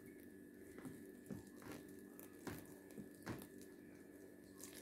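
Faint, irregular squelching crackles from a hand kneading and breaking up set, jelly-like homemade laundry soap in a plastic bucket as water is mixed in.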